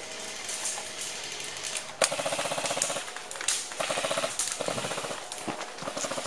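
Airsoft guns firing rapid full-auto bursts, a fast rattle of shots. It is faint at first and comes in louder bursts from about two seconds in.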